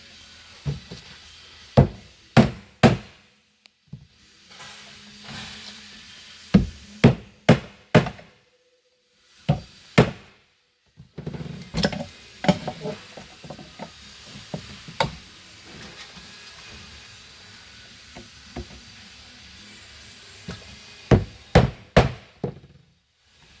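Small hammer striking rivets to set them, fastening a poly liner to the steel ridging wing: sharp blows in quick groups of two to four, with pauses between groups.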